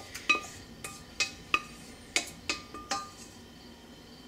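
A utensil scraping and knocking against a stainless steel saucepan as cooked chicken pieces are scooped out into a casserole dish. About seven sharp clinks with a short metallic ring come in the first three seconds, then it goes quieter.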